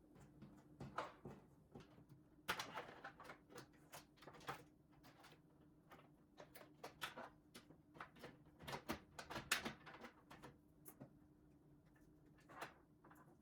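Scattered light clicks, taps and knocks of computer parts and screws being handled as a desktop PC is taken apart, some in quick clusters, over a faint steady hum.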